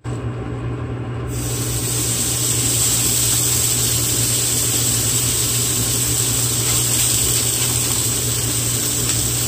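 Hanwoo chuck-flap beef steak sizzling in a hot non-stick frying pan, the steady hiss starting about a second in as the raw meat is laid down. A steady low hum runs under it.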